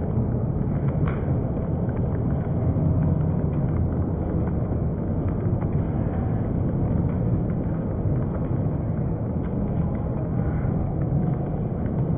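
Ballpark crowd noise reacting to a home run: a steady, muffled wash of many voices, heavy in the low end, with no single sound standing out.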